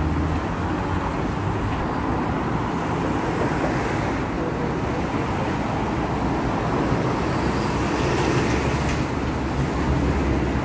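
Steady road traffic on a multi-lane road: a continuous mix of car and bus engines and tyre noise, with no single vehicle standing out.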